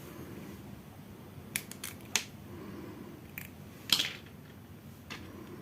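Several small, sharp clicks and taps from hands handling the wires and clips of a test rig, the loudest about four seconds in.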